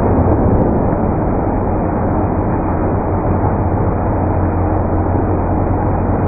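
Automatic car wash brush running: long cloth strips spinning and slapping against a car's front end, a steady loud wash noise with a low machine hum underneath.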